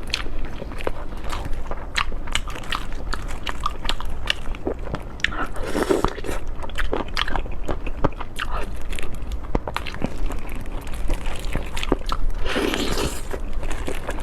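Close-up eating sounds: a person biting and chewing crunchy food, with many sharp crunches and a few longer, wetter chewing bursts.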